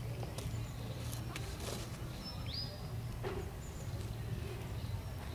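Outdoor background with a steady low rumble, a few faint clicks, and a bird giving a short high whistle that hooks downward, about halfway through and again starting near the end.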